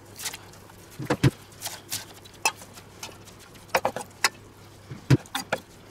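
Kitchen knife chopping lettuce on a wooden cutting board: irregular sharp taps of the blade striking the board, in small clusters.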